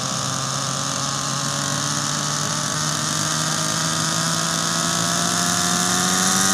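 Nitro-powered radio-controlled helicopter's engine and rotor running on the ground, the pitch rising slowly and growing louder as it spools up.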